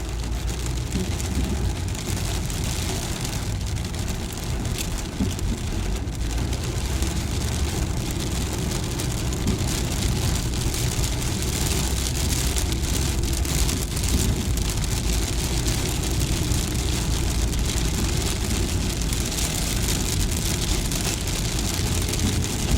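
Car driving on a rain-soaked road: a steady low engine and road rumble under an even hiss of rain and tyres on wet tarmac.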